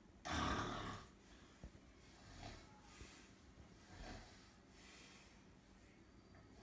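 A sleeping man snoring: one loud, rasping snore about a third of a second in, then several softer snoring breaths.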